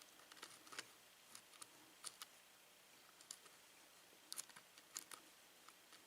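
Faint, irregular clicks and ticks of a lock pick working the pins inside a six-pin Schlage lock cylinder, with small clusters of clicks about two, four and five seconds in.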